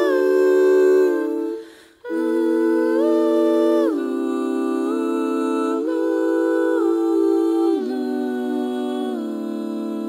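A cappella music: several voices humming sustained chords that shift step by step, with a brief break about two seconds in.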